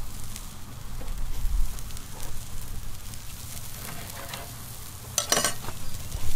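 Thick steak sizzling on a grill over hot coals, a steady crackly hiss with scattered small pops and a short, louder burst of noise about five seconds in.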